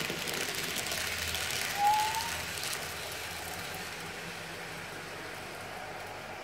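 N-scale model freight train of container wagons rolling past on the track: a steady rolling hiss, loudest in the first couple of seconds and then fading as the train moves away, with a short rising squeak about two seconds in.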